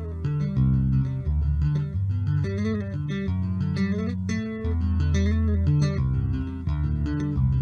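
Solo bass guitar music: a quick melodic line of plucked notes, with slides and bends between some of them.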